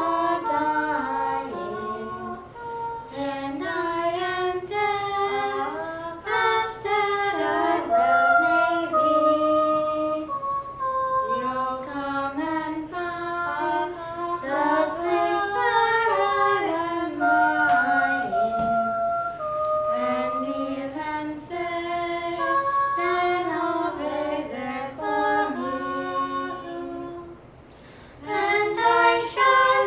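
Young girls singing a song together, unaccompanied, with a short break near the end before the singing resumes.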